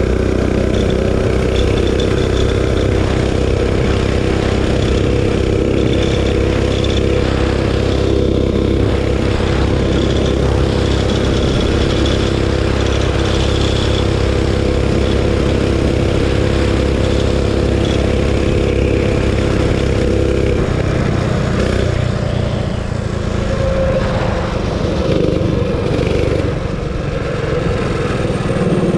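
Realtree RT200 mini bike's 196cc single-cylinder engine, with a custom exhaust and the governor spring tied off, running flat out at a steady high pitch on a top-speed run. About two-thirds of the way through the steady note breaks up and wavers as the throttle is eased and the bike slows, with wind noise throughout.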